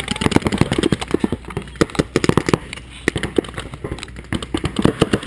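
Paintball markers firing rapid, uneven strings of shots, several sharp pops a second.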